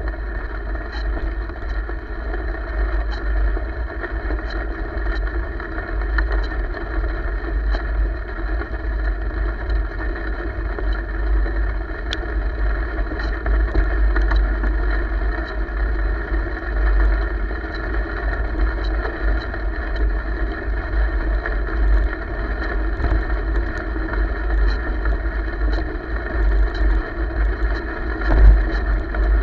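Wind buffeting the microphone of a camera moving along a trail, a heavy low rumble over a steady rolling noise from tyres on the path, with scattered light ticks.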